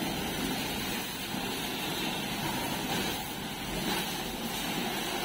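Steady hiss of high-pressure washer jets spraying water against a tractor's engine and bodywork.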